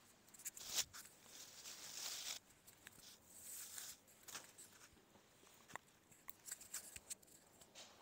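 Faint handling noise: fabric rustling and small clicks and taps as small objects are fiddled with in the hands, with the longest rustle about a second in and the clicks coming thicker in the second half.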